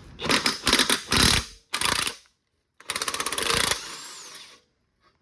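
Power tool hammering in several short bursts, one with a fast even rattle, while loosening the 19 mm upper control arm bolts.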